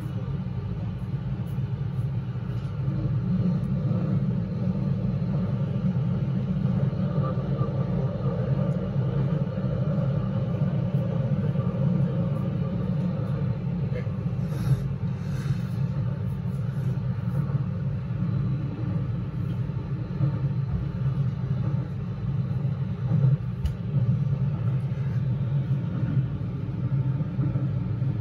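Keio Line train running through a subway tunnel, heard from inside the car: a steady low rumble of wheels and motors, with a brief patch of faint clicking about halfway through.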